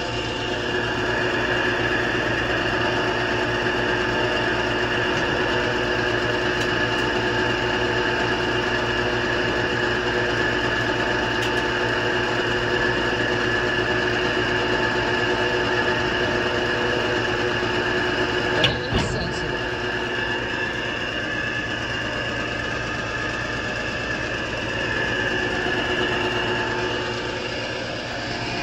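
Tractor engine running with the PTO driving a Grain-O-Vator feed cart's auger: a steady mechanical drone with several held, whining tones, as the auger runs with little or no feed for a first test. A single sharp metallic knock comes about two-thirds of the way through.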